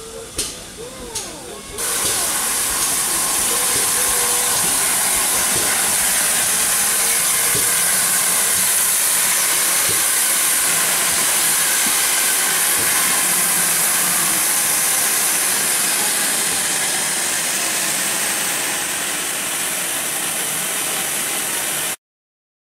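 GWR 'Modified Hall' steam locomotive No. 6960 standing at the platform and letting off steam: a loud, steady hiss that starts suddenly about two seconds in. Before it come a few light clicks. The hiss eases a little late on and stops abruptly near the end.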